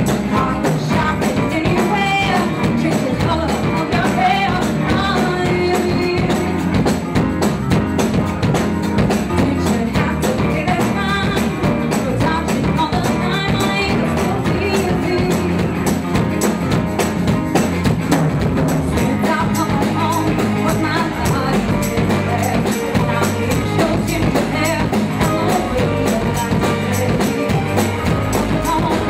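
Live band playing an upbeat song: drum kit keeping a steady beat under bass guitar and keys, with a woman singing lead into a microphone.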